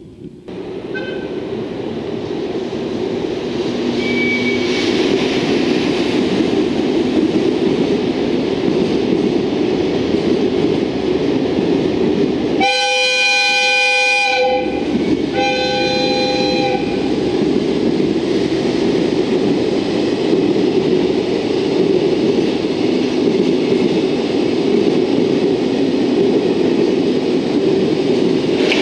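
An EF65 electric locomotive hauling Hoki 800 ballast hopper wagons runs through with a steady rumble of wheels on rail. About halfway through, the locomotive's air horn sounds twice: a long blast of nearly two seconds, then a shorter one about a second later.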